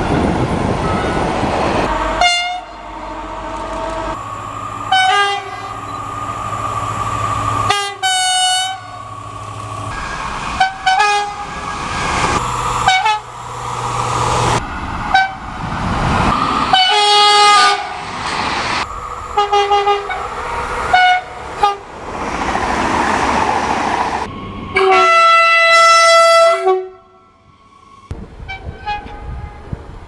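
A quick run of French train horns, with roughly a dozen short blasts cut together one after another. Stretches of passing-train rumble lie between them, including freight tank wagons rolling by at the start. A longer two-note horn call comes near the end and is cut off abruptly.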